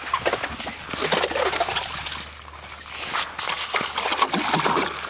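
Hand-cranked ice auger boring through lake ice: its blades cut with a dense, uneven scraping and crunching of ice chips, easing off briefly around the middle.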